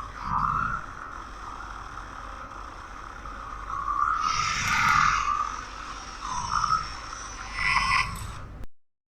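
Dark MIDI remix of an iPhone ringtone: heavily distorted, noisy electronic music in swelling bursts, cutting off suddenly near the end.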